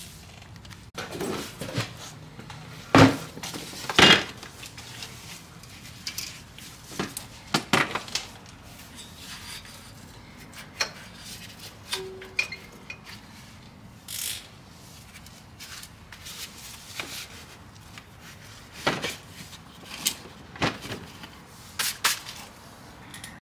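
Metal tools and brake parts knocking and clinking at irregular intervals as a rear disc-brake caliper is unbolted and worked off its bracket. The two loudest knocks come about three and four seconds in.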